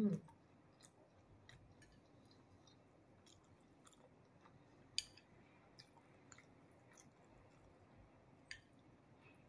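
A person chewing a mouthful of fried potato and egg, quietly, with a few faint clicks scattered through, the clearest about halfway and near the end. A short, louder vocal sound from the eater comes right at the start.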